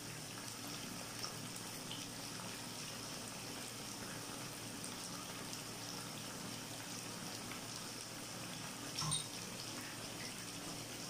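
Chicken in soy sauce simmering in a pan: a steady soft hiss with scattered small pops. A single sharp knock comes about nine seconds in.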